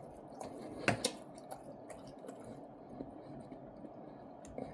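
Faint chewing and mouth sounds, with a few soft clicks, the loudest about a second in.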